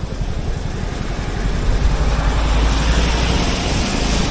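Vehicle moving along a highway: steady engine and road rumble with rushing noise that grows louder about a second and a half in.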